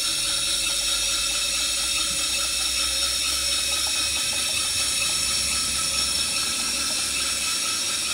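Gas-fired 1-inch-scale Minnie live-steam traction engine running: a steady hiss of steam and burner with a low hum underneath.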